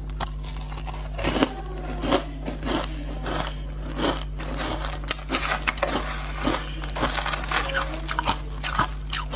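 Crushed ice being bitten and chewed up close: a rapid, irregular run of crisp crunches, over a steady low electrical hum.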